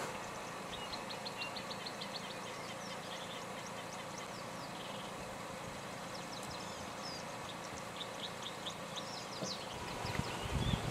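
Bush ambience: small birds chirping in quick runs of short high notes over a steady background hiss. Louder low rustling and thumps begin near the end.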